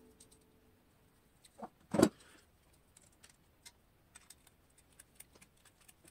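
Hand tools being handled against a carbon fibre drone frame while its screws are tightened: faint scattered ticks, with a small knock and then one sharp, loud clack about two seconds in.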